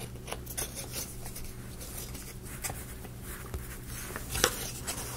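Light clicks and scrapes of laser-cut plywood gear parts being handled and fitted together, with a sharper click about four and a half seconds in.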